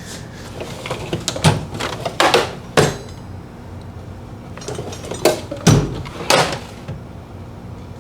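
Metal tool chest drawers being pulled open and pushed shut, a series of about six clunks and knocks.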